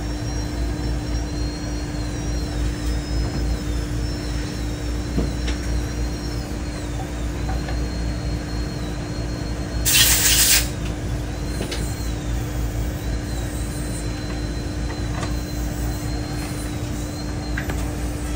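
Steady hum of dental-lab machinery with faint, wavering high whines, and one short burst of hissing air about ten seconds in.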